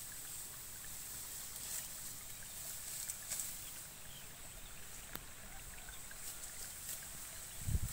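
Outdoor rice-field ambience: a steady high hiss with a few light ticks and rustles, over a low wind rumble on the microphone. A brief gust buffets the microphone near the end.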